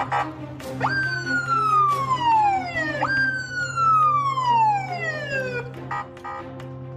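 Police siren: a moment of rapid pulsing yelp at the start, then two long wails that each leap up and slide slowly down over about two and a half seconds, stopping about six seconds in.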